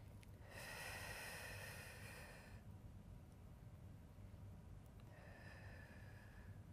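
Faint breathing: a long exhale about half a second in, lasting around two seconds, and a fainter one near the end, from a person breathing out while holding a deep stretch.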